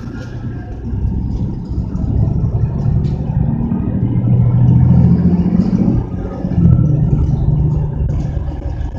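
Mercedes-Benz bus's diesel engine heard from inside the passenger cabin, pulling the bus up to speed. The engine note builds over the first few seconds, breaks briefly about six seconds in, picks up again, then eases off near the end.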